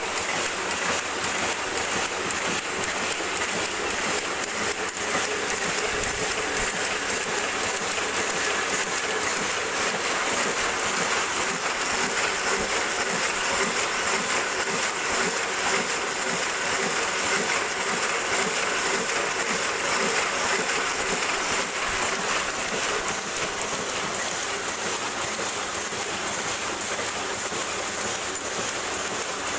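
Hamada 500CDA small offset printing press running steadily, an even, continuous mechanical noise with no pauses.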